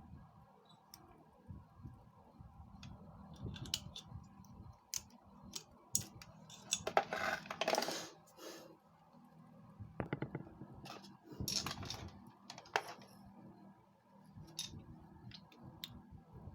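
Scattered clicks and metallic clinks of small parts and tools being handled, with a longer scraping noise about seven seconds in and a shorter one near twelve seconds.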